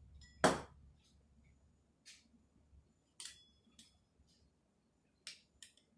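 Pizza cutter wheel pressed and rolled through rolled-out noodle dough against a tabletop. About six short scraping clicks, the loudest about half a second in.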